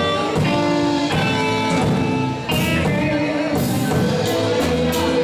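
Live reggae band playing: keyboard, bass guitar, guitar, drum kit and hand drums, with held keyboard chords over a steady beat.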